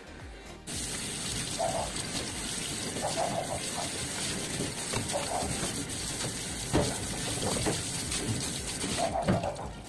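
Handheld shower sprayer running a stream of water over a dog's coat in a stainless-steel grooming tub, an even hiss that starts abruptly about a second in and stops shortly before the end.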